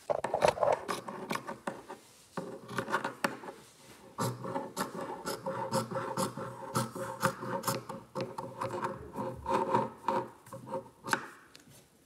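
Scissors cutting through velvet fabric on a wooden table: a dense crunchy rasping of blades through the thick pile, with short breaks about two and four seconds in, stopping just before the end.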